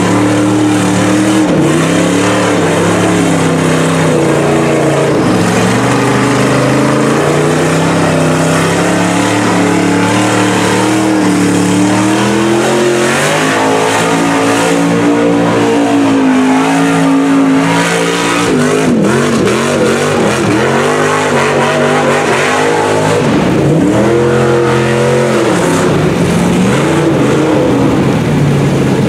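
Pickup truck engine revving up and down, pushing through deep floodwater, over the steady rush and splash of water thrown up by the tyres.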